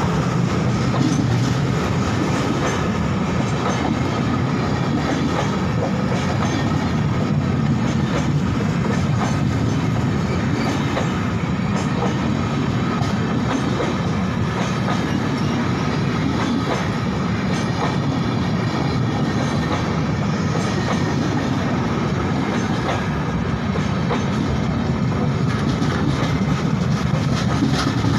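Nizamuddin Rajdhani Express coaches passing close by: a steady, loud rumble of steel wheels on the rails with scattered clicks as the wheels cross rail joints.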